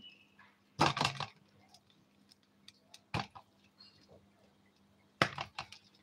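Sharp crackles and snaps as a green parakeet feeds from a plastic bag of red-stemmed leafy greens, its beak working the stems and the bag crinkling. They come in three bursts: about a second in, a single snap near the middle, and a longer burst about five seconds in, with small ticks between.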